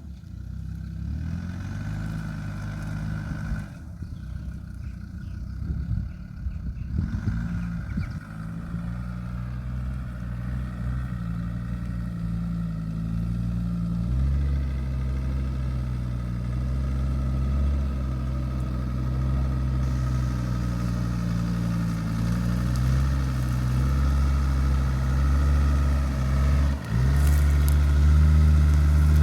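Land Rover Discovery 2 Td5's five-cylinder turbodiesel engine running as the truck is driven off-road, its pitch stepping up and down with the throttle and growing louder toward the end, with a brief dip near the end.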